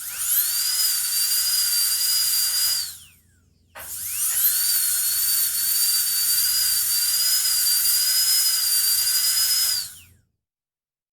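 Dentist's drill whining at a high, steady pitch: it spins up, runs for about three seconds and winds down, then spins up again and runs about six seconds before winding down.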